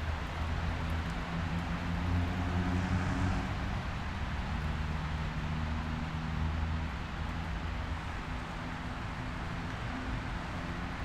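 A steady low engine hum, like a vehicle running at an even speed.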